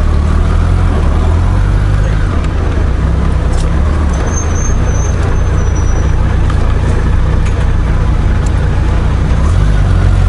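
Honda Gold Wing GL1500's flat-six engine running at low speed in stop-and-go traffic, a steady low rumble. A brief high whistle sounds about four seconds in.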